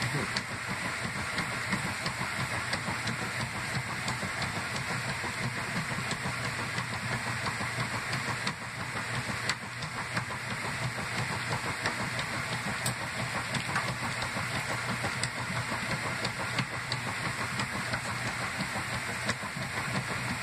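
A 1997 Kenmore top-loading washer agitating a load. Its motor and transmission hum steadily under the churning and sloshing of water and clothes.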